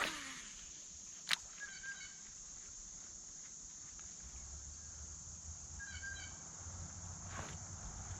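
Insects droning steadily at a high pitch, with a single sharp click about a second in and two short animal calls about four seconds apart.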